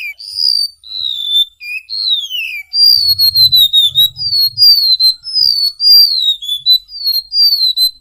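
Golden-bellied gerygone (remetuk laut) singing: a run of high, clear whistled notes, each sliding down in pitch. The notes come faster and closer together from about three seconds in.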